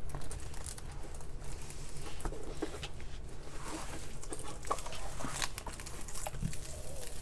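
Hands pressing and smoothing a rolled-out diamond painting canvas under its clear plastic film: irregular soft rustling and crinkling of the plastic with scattered light taps, over a low steady hum.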